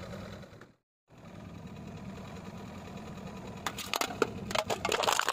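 A car's engine idling with a low steady hum, which drops out briefly about a second in. From just under four seconds, an aluminium drink can crackling and crunching in a quick run of sharp cracks as the car's tyre rolls onto it and flattens it.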